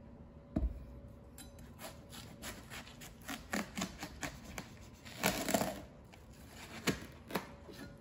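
A large kitchen knife cutting a watermelon on a maple wood cutting board: a run of short crisp crunches and taps as the blade goes through the rind and strikes the board. There is a dull knock just after the start and a longer crunching cut a little past the middle.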